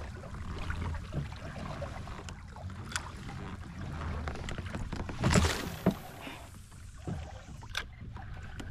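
A spinning rod cast from a fishing kayak: about five seconds in, a short whoosh as the rod swings and the line runs off the reel, fading within half a second. Light, sharp clicks come now and then, over a low steady wash of water and wind around the kayak.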